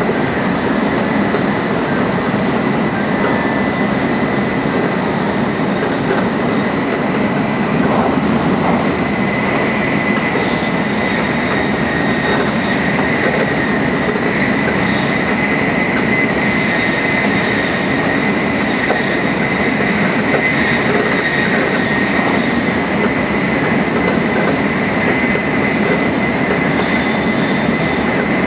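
Tokaido Shinkansen Nozomi running at high speed: a steady rush of wheel and running noise with a thin, constant high whine over it.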